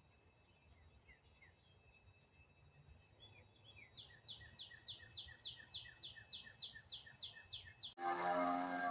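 A bird chirping: a fast, even run of short, high, downward-sliding chirps, about two and a half a second, faint at first and louder from about halfway in. Near the end it is cut off by a sudden switch to speech.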